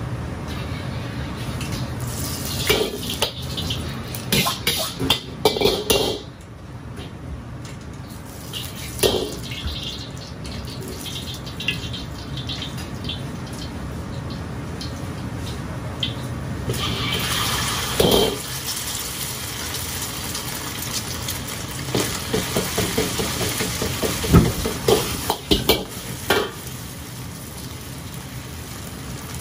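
A gas wok burner runs steadily under an iron wok while a steel ladle swirls hot oil in it, clanking against the wok several times. About two-thirds of the way in the sizzle rises as egg goes into the hot oil. Near the end a quick run of ladle knocks and scrapes stirs the scrambling eggs.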